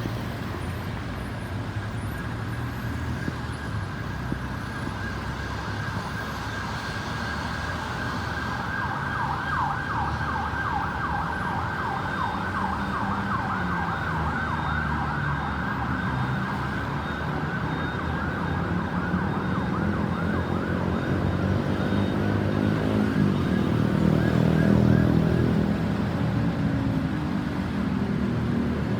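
Ambulance siren sounding a fast yelp, sweeping up and down a few times a second, over traffic and engine noise that swells to its loudest near the end.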